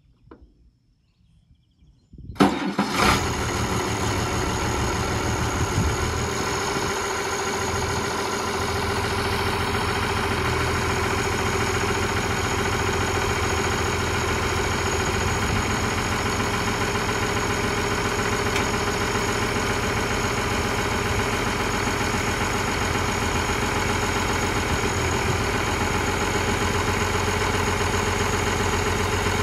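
An engine starts suddenly about two seconds in, surges briefly, then settles into a steady idle.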